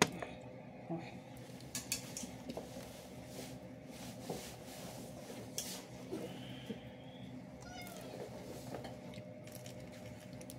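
Hands twisting and bending a boiled corn cob to snap it in two, giving scattered small cracks and creaks of the cob and kernels.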